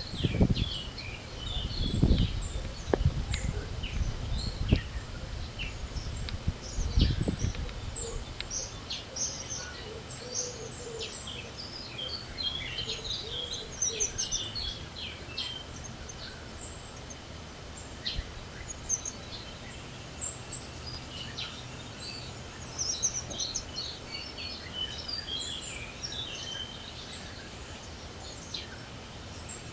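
Several small birds singing and chirping in short overlapping phrases, with gusts of wind rumbling on the microphone during the first several seconds.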